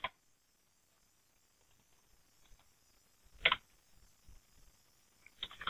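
Computer keyboard keys and mouse clicks: a couple of taps at the start, a short, louder cluster of clicks about three and a half seconds in, then quick typing starting near the end.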